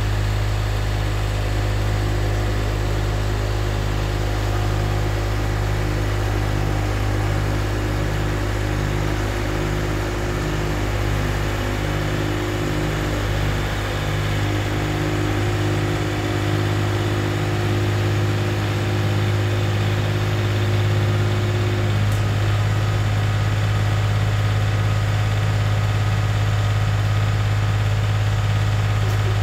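Wado SS215 tracked snowblower running steadily while it throws snow from its chute. About three-quarters of the way through, some of the higher tones of its running drop out and the engine runs on.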